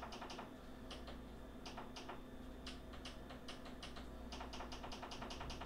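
Ninja Foodi multicooker's control panel clicking under repeated presses as the pressure-cook setting and time are stepped through: a run of quick, uneven, faint clicks.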